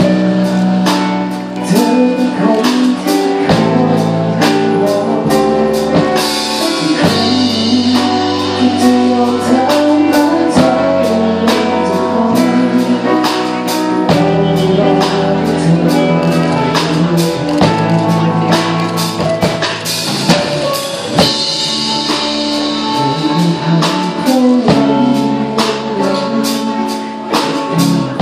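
Live band playing a pop-rock song through the PA: a male singer over electric guitars and a drum kit keeping a steady beat.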